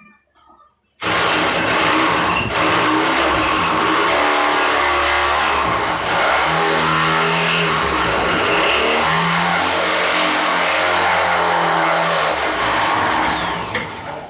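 A loud motor running for about thirteen seconds, starting and stopping suddenly, its pitch sweeping up and down as it runs.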